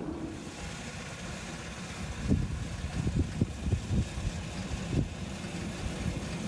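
Small engine of a miniature railway locomotive running steadily low, with a run of irregular knocks and clunks from about two to five seconds in.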